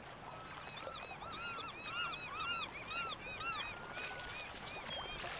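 A flock of birds calling: many short calls that rise and fall in pitch, in quick overlapping succession through the first three seconds or so, then a few thin steady notes, over a faint hiss.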